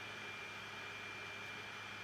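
Steady background hiss with a thin, steady high-pitched tone and a faint low hum beneath it.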